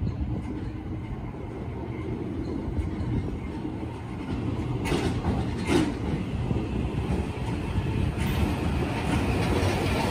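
Tokyo Metro Marunouchi Line 2000 series subway train approaching and running past on the track, a low rumble of wheels on rail that grows steadily louder. Two sharp clicks come about five and six seconds in.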